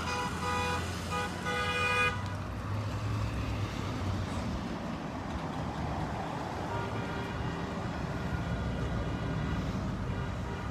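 Car horns honking in a quick series of short toots for about two seconds over the low rumble of passing cars and trucks, then a fainter steady horn-like tone from about seven seconds in.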